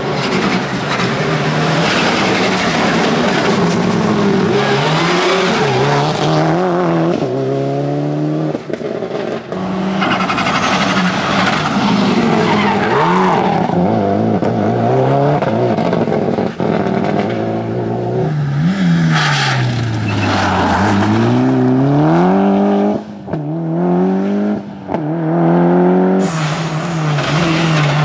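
Subaru Impreza rally cars' flat-four engines revving hard, with pitch climbing and dropping through gear changes, and tyres squealing as the cars slide through corners. The sound changes abruptly several times as one pass cuts to the next.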